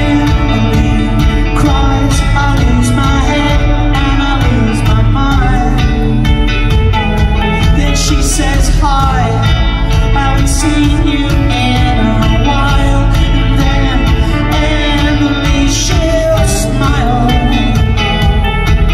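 Live rock band playing through a loud PA, electric guitars over drums with a steady beat, heard from within the audience.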